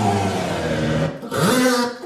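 A motor-like whir that sweeps in pitch: it holds low, cuts out about a second in, then quickly rises, holds, and falls again near the end.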